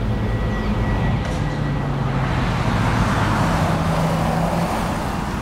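A car driving up on a wet, slushy road. The rush of its tyres and engine grows louder toward the middle and then eases as it slows, over a low steady hum.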